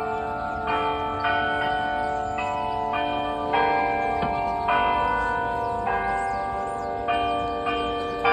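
The Delacorte Musical Clock at the Central Park Zoo playing a slow tune on bells, one struck note about every second, each ringing on into the next.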